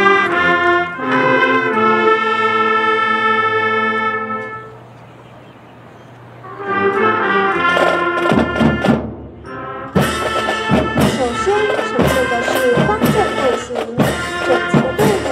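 Brass music: held brass chords, a quieter dip about four and a half seconds in, then the music resumes and is joined by sharp percussive strikes from about eight seconds in.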